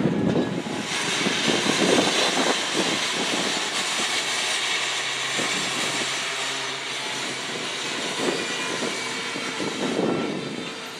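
Freight train boxcars rolling past on steel rails: a steady rushing noise of wheels on rail, with a few scattered clunks.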